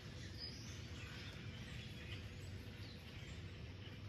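A few short, faint bird chirps over a steady low background rumble.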